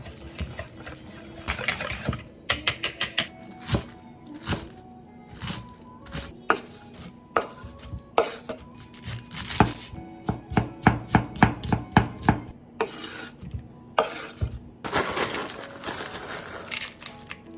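Kitchen knife chopping on a cutting board in uneven runs of sharp strokes, with a quicker run of about four or five strokes a second a little past the middle.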